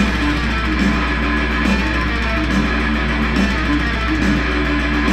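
Distorted electric guitar playing a metal riff built on a pedal tone: a fast string of repeated short notes anchored on the open low string, broken up by higher fretted notes.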